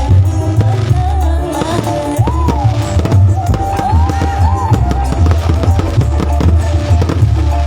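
Music with a heavy drum-kit beat, strong steady bass drum, under a melody line that slides and bends in pitch.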